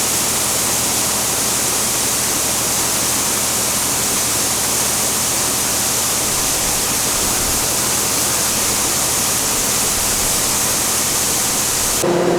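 Grain dryer running: a steady, loud rush of air from its fan and burner. It cuts off abruptly near the end, leaving a lower steady hum.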